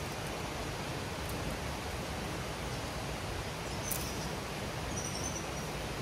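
Steady rushing of a flowing stream, with a short high click about four seconds in and a faint high chirp a little after five seconds.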